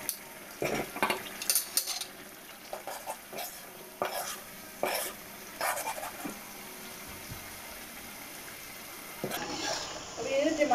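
Chicken karahi frying and sizzling steadily in a black iron karahi over a high gas flame. A metal spoon scrapes and clinks against the pan at irregular moments as the chicken and tomatoes are stirred.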